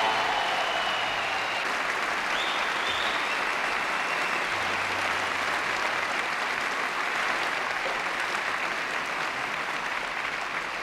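Studio audience applauding, a steady clapping that slowly dies down toward the end.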